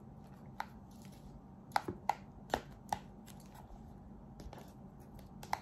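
Instant noodles being stirred and mixed in a cup with a plastic fork: irregular light clicks and taps of the fork against the cup, about half a dozen, the loudest coming together around two seconds in.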